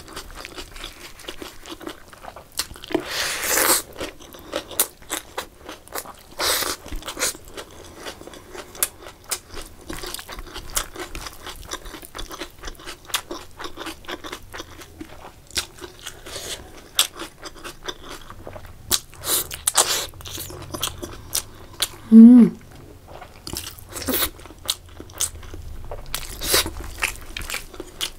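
Close-miked eating: wet chewing and lip-smacking of chicken curry and rice eaten by hand, with many small mouth clicks and several louder crunching bites.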